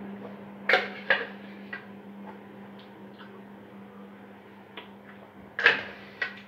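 Handling knocks from a plastic blender jug and a metal spoon while drinking from the jug: a few sharp knocks and clicks, the loudest near the end, over a low steady hum.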